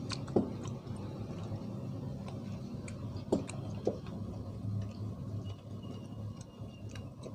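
A person eating: chewing with a few light clicks and smacks as a plastic spoon scoops food in a styrofoam box, over a steady low hum.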